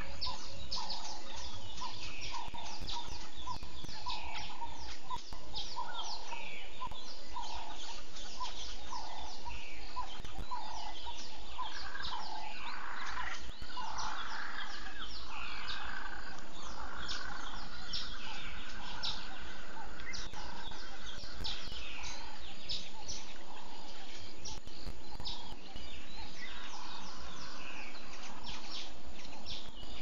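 A dawn chorus of many wild birds calling over one another, with short chirps and calls overlapping and one call repeated in a steady series through the first half.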